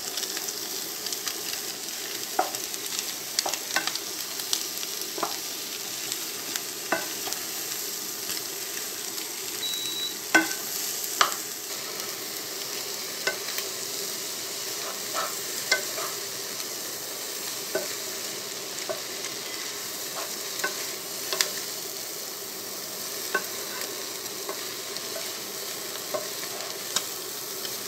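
Shredded cabbage, capsicum, carrot and beans sizzling in oil over high heat in a nonstick pot, stir-fried with a wooden spatula that scrapes and knocks against the pot at irregular moments. A short high tone sounds about ten seconds in.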